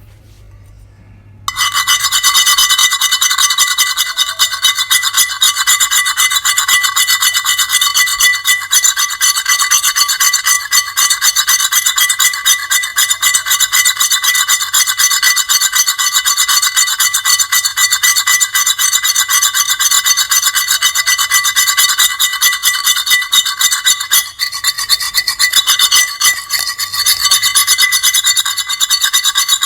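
Continuous high-pitched grating scrape: a screech with several steady pitches and a rapid stuttering flutter. It starts about a second and a half in and breaks briefly near three quarters of the way through.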